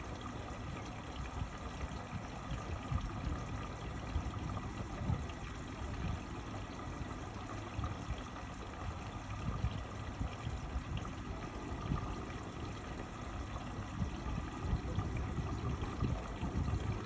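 Indesit MyTime EWE 71252 front-loading washing machine with water running steadily into it, a continuous rushing and trickling.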